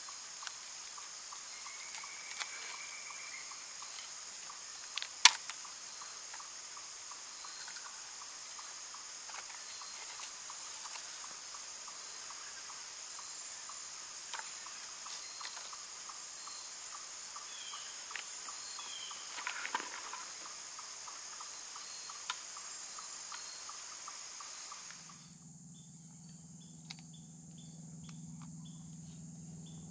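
Woodland insect chorus of crickets: a steady high-pitched trilling with a rhythmic repeating chirp beneath it, broken by a few sharp clicks. Near the end the sound shifts, with a low hum coming in.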